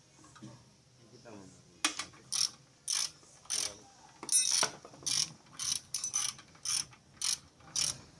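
Hand ratchet wrench worked back and forth on a fastener under the car, giving a short burst of ratchet clicks on each return stroke, about two a second, starting about two seconds in.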